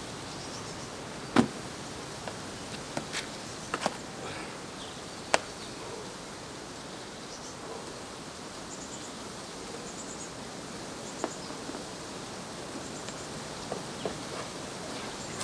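A climber's hands and climbing shoes knocking and scraping against sandstone during a boulder problem: a few sharp knocks, the loudest about a second and a half in, over a steady background hiss. Faint high chirps come and go in the middle.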